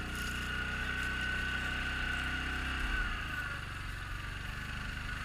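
Quad bike (ATV) engine running steadily, with a steady high whine over the engine note; the low engine tone shifts slightly about three seconds in.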